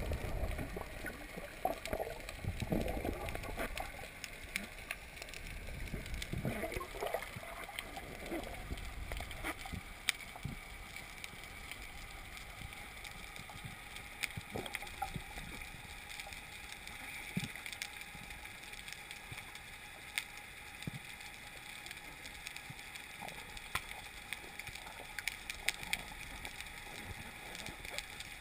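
Water gurgling and sloshing, fuller for the first several seconds, then a fainter steady hiss with scattered sharp clicks.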